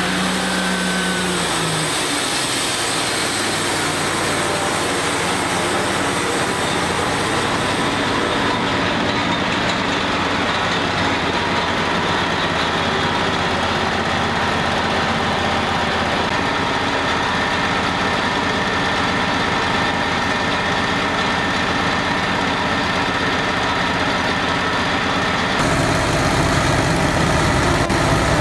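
Wood-Mizer LT35HD portable band sawmill running steadily, its Kohler gas engine under load as the band blade saws through a black walnut log. The sound turns fuller and a little louder near the end.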